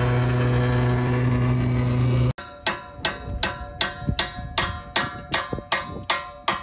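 A steady low machine hum with a few overtones, cut off abruptly about two seconds in. Then background music of evenly repeated ringing notes, about two and a half a second.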